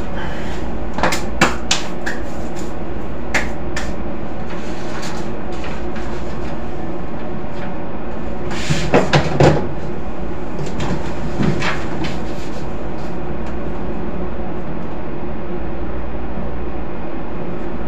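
Plastic storage crates and a plastic lid knocking and clattering as they are pulled out and handled on wooden shelving: scattered clicks in the first few seconds and a louder cluster of knocks about halfway through. A steady low machinery hum runs underneath.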